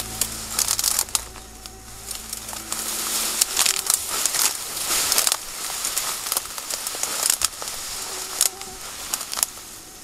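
Irregular crunching and crackling of dry leaves, twigs and brush as someone walks through dense undergrowth.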